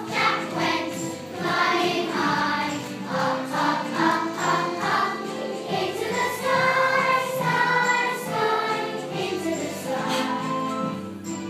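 A group of schoolchildren singing a song together as a choir.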